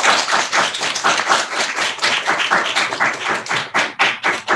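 Applause: hands clapping rapidly and irregularly in a steady run of sharp claps.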